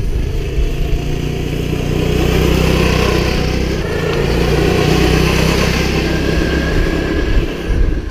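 Small gas engine of a motorized go-kart wagon running steadily under throttle, with a dense rushing noise over it.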